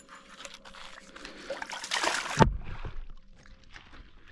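Water splashing and sloshing as a hooked brook trout thrashes at the surface close to shore, building to a loud burst and cutting off abruptly in a low thump about two and a half seconds in.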